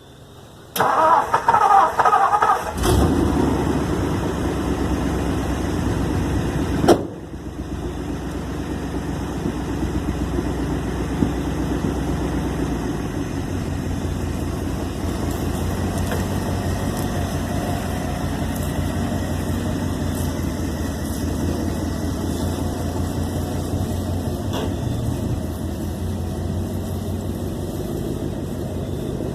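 Truck engine cranked on its starter for about two seconds, catching and then running steadily. A sharp thump about seven seconds in.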